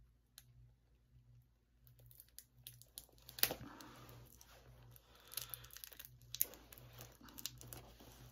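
Plastic shrink-wrap sealing a DVD case being picked at and torn by hand, crinkling and crackling in irregular bursts, with the sharpest crackle about three and a half seconds in.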